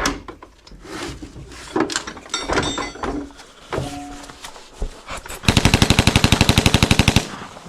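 Electric demolition hammer breaking up hard clay: a loud, fast, even hammering burst of under two seconds, starting about five and a half seconds in and stopping abruptly. Scattered knocks and tool clatter come before it.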